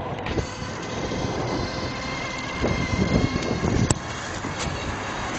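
Tribred Pon-e electric trike rolling along a sidewalk under power: wind buffets the microphone over a steady rumble of wheels on concrete. A faint, steady high whine runs through the first few seconds, and there is one sharp click about four seconds in.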